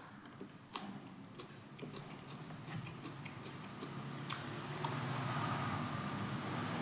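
Close-miked eating sounds: a man chewing a mouthful of rice and meat, with soft wet mouth clicks and lip smacks and a sharper click about a second in and again about four seconds in. A faint background hiss grows louder over the second half.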